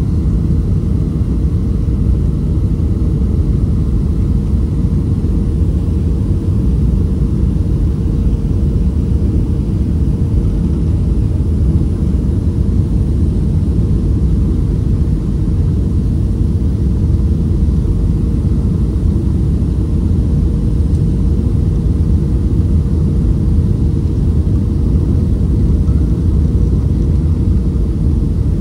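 Cabin noise of a Boeing 737-500 on final approach with flaps extended: a steady low rumble of its CFM56 engines and airflow, with a steady hum running through it.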